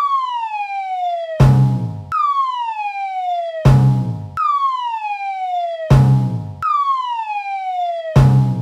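Repeating sound-effect loop: a whistle-like tone sliding down in pitch for just over a second, then a short loud crash, the pair coming about every two and a quarter seconds, four times over.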